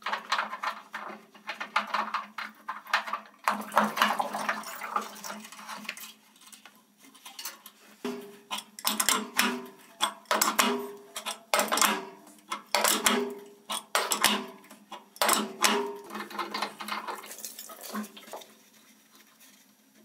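Metal clinks and scrapes as a new brass ball valve is threaded into a water heater's drain port and tightened with an adjustable wrench. The wrench clanks against the fitting about once a second, each clank with a short ring.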